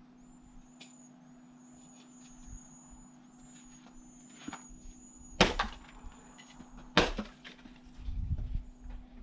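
Two sharp wooden knocks about a second and a half apart, a little past halfway, with a few lighter clicks around them: firewood being worked, split or knocked together.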